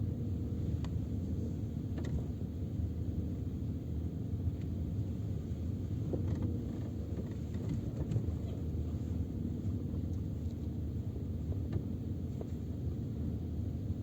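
Cabin road noise of a Peugeot 407 rolling slowly in first gear: a steady low rumble with a few faint, light clicks. The rattle from the rear seatbacks is absent, since their loose latches have been wrapped with electrical tape.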